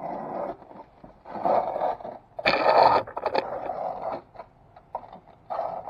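Knife blade being drawn across an oiled sharpening stone in several separate scraping strokes, with short pauses between them; the stroke about two and a half seconds in is the loudest.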